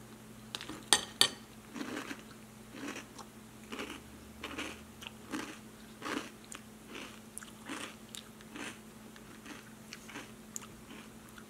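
A pet chewing and crunching food, one short crunch every half second to a second, after two sharp clicks about a second in.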